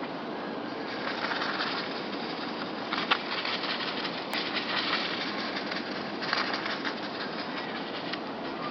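Birds' wings flapping in several short bursts, with one sharp tap about three seconds in.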